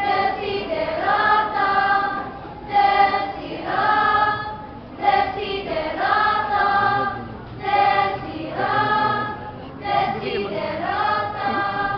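A children's speech choir singing together in held phrases with short breaks between them, stopping near the end.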